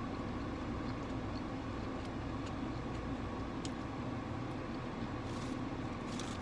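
Steady low rumble inside a car with the engine running, with a few faint clicks and rustles.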